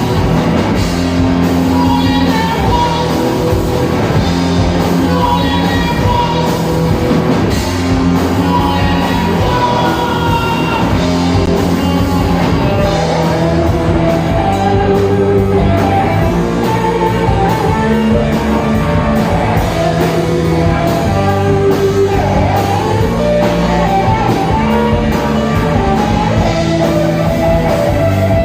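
Live rock band playing, with a singer over guitar and a steady drum beat, loud throughout.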